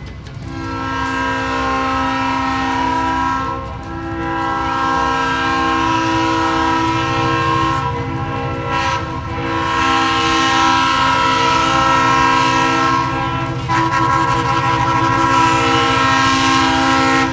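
Diesel locomotive's multi-chime air horn sounding a chord in several long blasts with short breaks between them. The locomotive's engine rumbles low underneath.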